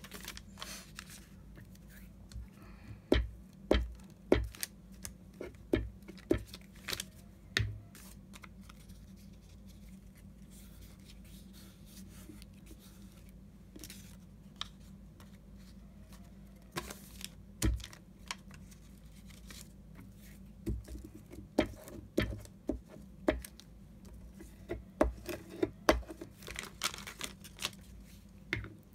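Paper scraps being handled and torn, with clusters of sharp taps and knocks on a work surface. There is a quieter stretch in the middle.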